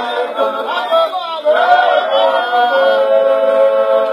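A group of voices singing without instruments. The pitch moves from note to note at first, then settles into long held notes from about three seconds in.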